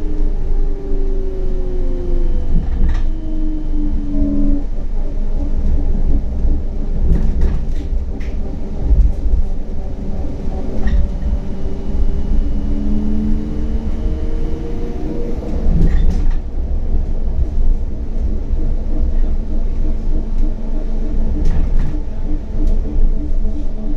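CAF Urbos 100 tram running on rails: the traction motors' whine falls in pitch as it slows in the first few seconds, then rises again as it picks up speed and settles into a steady tone. Underneath runs a constant low rail rumble, broken by several sharp clicks of the wheels over rail joints.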